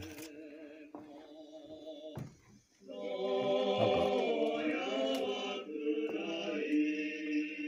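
Old Japanese gramophone record playing back through a small CD player: a voice singing in long held notes. It falls quiet briefly a little after two seconds in, then comes back louder.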